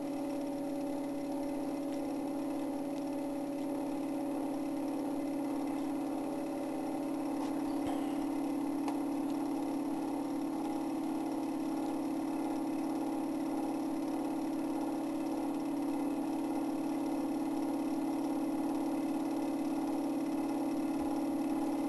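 Rotor of a bench-top generator-coil test rig spinning at about 1,065 rpm, giving a steady mechanical hum.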